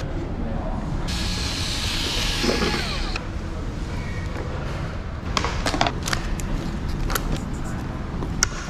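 Parts of a DIY electric one-wheel board being handled and pulled apart. A rubbing, scraping noise lasts about two seconds, then a scatter of sharp clicks and knocks follows as the footpad, bumper and battery pack are worked loose.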